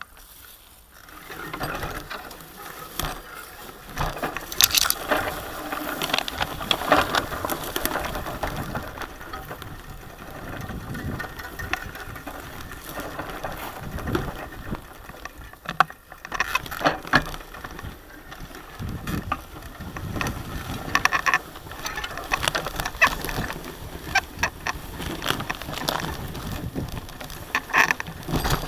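Bicycle pushing through tall dry grass and weeds off-road: stems swishing and brushing against the bike, with many sharp clicks and ticks from the bike and the vegetation. It starts up about a second and a half in, after a quiet moment.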